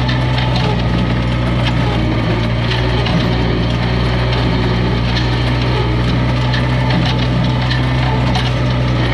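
1959 Farmall 560 tractor engine running steadily as it drives a New Holland Super 66 small square baler through the PTO shaft. The baler's pickup and plunger clatter with many irregular knocks as it takes in and packs hay.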